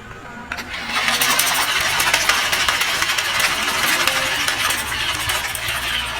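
A small motor running, with dense rattling and clicking throughout and a low steady hum beneath.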